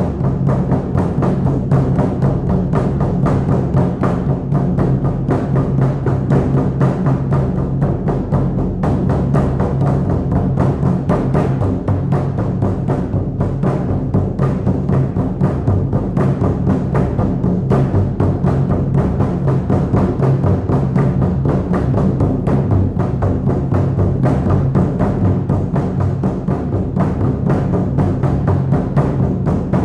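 Shamanic hand drum beaten in a fast, steady, unbroken beat, each stroke leaving a low ringing tone under the rhythm.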